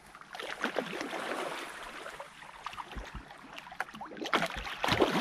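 Large carp splashing in shallow flooded water along a reed bed, with reed stems rustling; irregular splashes, denser and louder in the last second or so.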